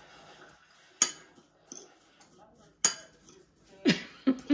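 Metal fork clinking against a ceramic bowl while stirring shredded coconut flakes, with two sharp clinks about two seconds apart.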